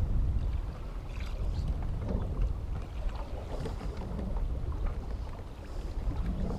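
Wind buffeting the microphone in a steady low rumble, with choppy water slapping against a small boat's hull.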